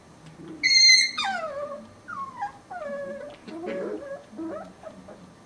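Chihuahua puppy whining: a loud, high-pitched cry about half a second in that slides down in pitch, followed by a string of shorter falling whimpers.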